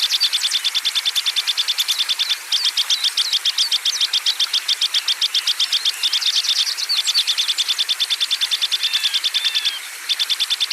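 Songbirds chirping and whistling over a fast, even, high pulse of about eight strokes a second. The pulse breaks off briefly twice.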